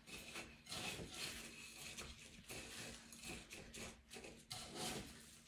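Crushed taco chips crackling and rustling as gloved hands press an egg-coated chicken fillet into them in a bowl, a faint, irregular scratchy sound.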